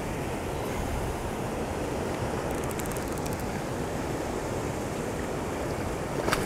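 Steady rush of fast river water through rapids, with a brief run of faint clicks about two and a half seconds in and a sharper click near the end.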